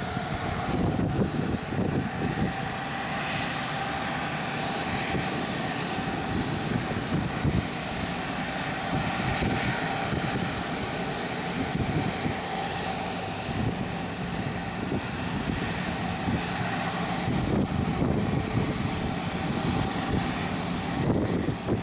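Boeing 777-300 jet engines running at low power as the airliner rolls slowly along the runway after landing: a steady rumble with a faint steady whine on top. Wind buffets the microphone.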